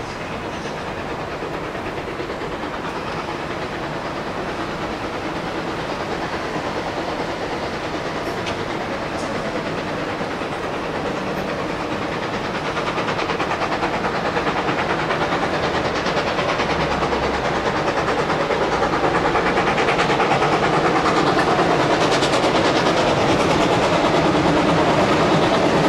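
Steam locomotive BB18¼ 1089 approaching on the track, a steady rushing rumble and hiss that grows gradually louder, loudest near the end.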